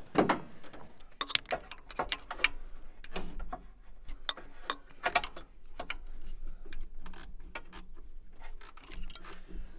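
A spanner working bolts on a car engine: irregular metallic clicks and clinks, some coming in quick runs.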